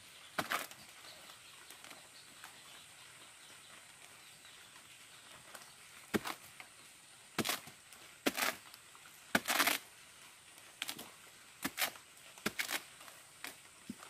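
A machete and bare hands chopping, scraping and tearing into the soft, rotted pith of a felled sago palm trunk, in irregular short bursts, one of them longer, about the middle.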